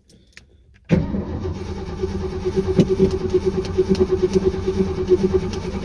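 1986 Ford F250 pickup's engine being cranked on its starter, a steady whir with a fast rhythmic pulse that starts suddenly about a second in and keeps going. The truck had run out of gas and has just been refilled, so it is cranking to draw fuel back up.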